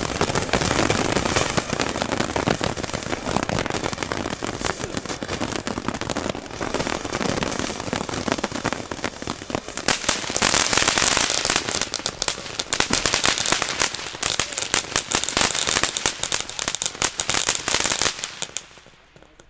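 Ground fountain firework from a Lesli assortment burning, spraying sparks with a dense, rapid crackle over a hiss. It dies away near the end.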